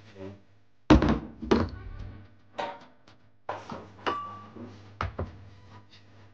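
Heavy thuds and knocks as a raw bone-in lamb leg is handled and set down in a baking tray on a kitchen counter, about six knocks over four seconds, one of them leaving a short ring.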